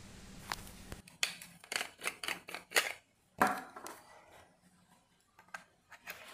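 Low steady hum that cuts off about a second in, then a quick run of sharp clicks and knocks, about ten in two and a half seconds, followed by a few scattered ones: small hard parts being handled up close.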